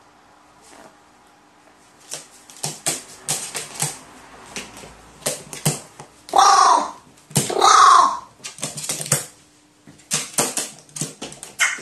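Pet crow giving two loud, harsh caws in quick succession in the middle, amid a rapid run of clicks and taps from its claws and beak on the metal table top and a plastic toy.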